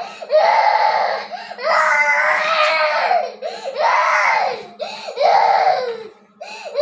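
Young child crying hard, in about four long high-pitched wails with short gasping breaths between them.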